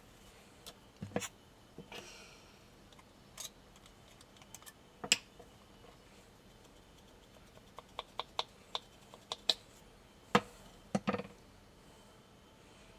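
Parts of a PPSh-41 submachine gun being handled, giving irregular sharp clicks and knocks. A quick run of small clicks comes about eight seconds in, and the loudest knocks come about five and ten seconds in.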